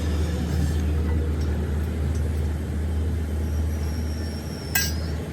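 A steady low mechanical hum, like a running motor or machine, with one sharp metallic knock near the end.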